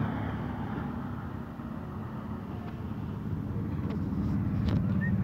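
A motor vehicle's engine running nearby with a low, steady hum that dips a little midway and then grows louder toward the end.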